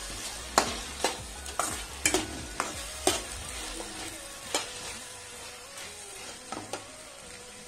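Metal spatula stirring diced vegetables in a nonstick pan, scraping and knocking against the pan about twice a second for the first three seconds, then only now and then. Under it the vegetables sizzle softly as they sauté on low flame.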